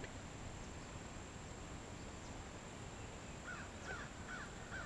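Quiet waterside ambience with a faint steady high-pitched hum; near the end a bird gives four short calls in quick succession.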